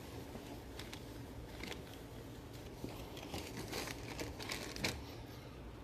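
Faint crinkling of plastic packaging and card sleeves, with light scattered clicks, as trading cards are handled.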